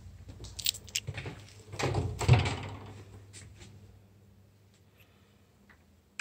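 An interior door being opened: a couple of sharp clicks, then rubbing and a heavy knock about two seconds in, and one more sharp click at the end.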